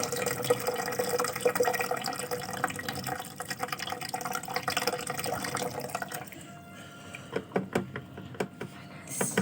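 Boiled herbal jamu (ginger, galangal and lemongrass decoction) being poured through a strainer into a container: a steady splashing pour that stops about six seconds in, followed by drips and a few light clinks.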